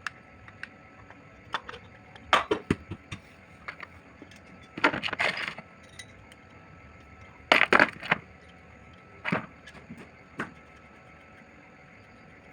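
Metal tools and engine parts clinking and tapping in scattered short clatters, with three louder bursts of rattling about two, five and eight seconds in.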